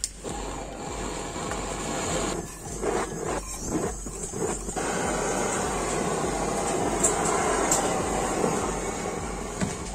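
Handheld gas torch on a yellow canister burning with a steady hiss, used to heat PVC conduit so it can be bent, with a few light knocks of handling about three to four seconds in.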